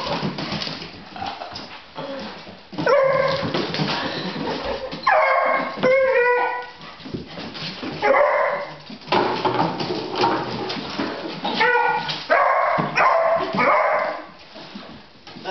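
Young beagle barking and yelping in repeated bouts, a fear reaction to a wastepaper basket held out toward it, with short sharp clicks and knocks between the bouts.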